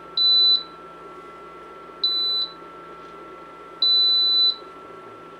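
Touch control panel of a Power Smokeless Grill beeping as its temperature buttons are pressed: three short high beeps, the last one held longer. Under them runs the steady whir of the grill's built-in smoke-extraction fan.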